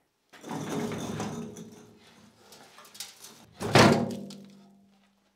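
Rusty sheet-steel shop cart being tipped over: a scraping rattle of the steel box, then one loud clang as it lands on its side, ringing out for over a second.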